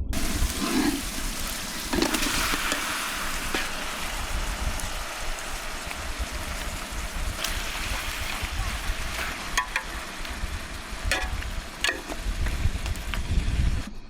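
Food sizzling and frying over a fire: a steady hiss with scattered pops and clicks.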